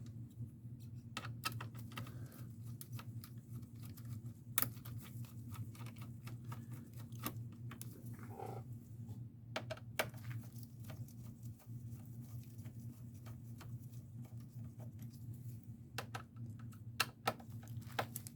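Scattered light clicks and taps of small tools and parts being handled while a computer is taken apart, the sharpest a few single clicks, over a steady low hum.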